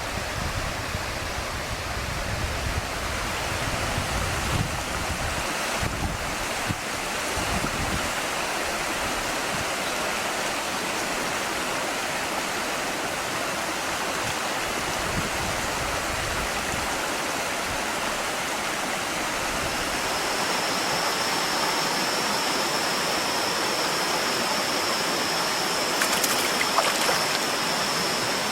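Steady rushing of a jungle river's flowing water. There is some low buffeting in the first several seconds, and a steady high whine comes in about two-thirds of the way through.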